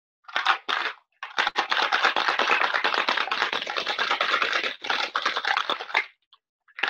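Ice rattling hard inside a cocktail shaker shaken vigorously by hand, a dense fast clatter. It breaks off briefly about a second in and stops near the end. Heard over a video call.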